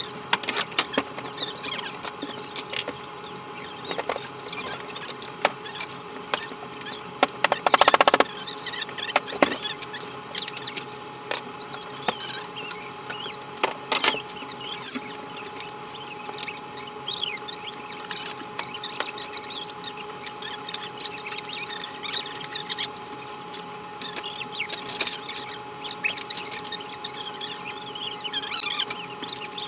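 Metal shanty-frame tubes knocking and clattering against a plastic sled as the frame is fitted, with a loud knock about eight seconds in and another near fourteen seconds. Frequent short high squeaks run throughout.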